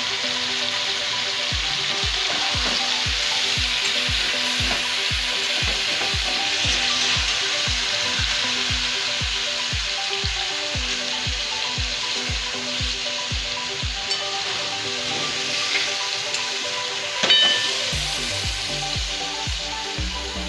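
Mutton pieces frying in oil in a wok, a steady sizzle, as they are stirred with a spatula. A single sharp clink comes near the end.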